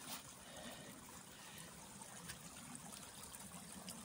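Faint, steady trickle of rainwater running down a flooded footpath.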